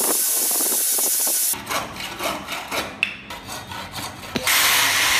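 A handheld electric rotary tool with a sanding drum grinds wood with a steady high hiss that stops about a second and a half in. Then a hand tool scrapes across wood in quick strokes, about four or five a second. Near the end, power sanding starts again.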